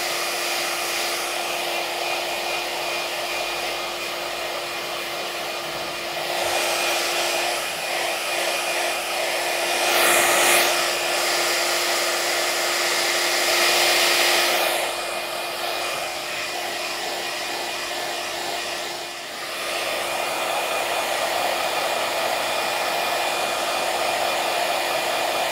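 Steady hair-dryer-like whir of an iTeraCare handheld wand's fan blowing warm air, with a constant hum. It grows louder a few times and dips briefly about three-quarters of the way through.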